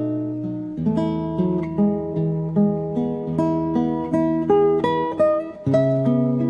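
Background music: acoustic guitar picking a melody over held chords, a new note plucked every half second or so.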